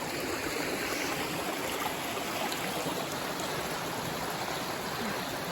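Small forest stream running over rocks: a steady rushing of water.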